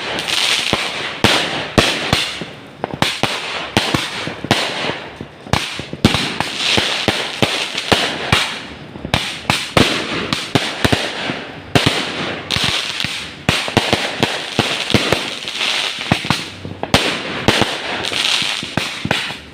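Fireworks display: many sharp bangs in rapid, irregular succession, with continuous crackling between them.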